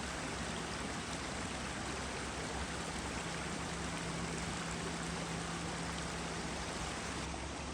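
Steady rushing sound of running water, like a stream, with a faint low hum in the middle.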